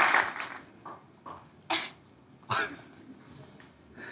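Audience applause dying away, then a few short breathy bursts of a man's stifled laughter.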